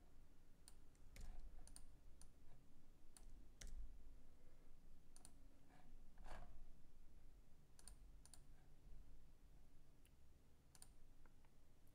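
Faint, scattered clicks of a computer's mouse and keys being worked, about a dozen spread irregularly, over a low room hum.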